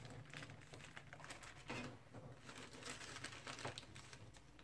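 Faint rustling and crinkling of a paper sterile-glove wrapper being handled and unfolded, with a few small crackles.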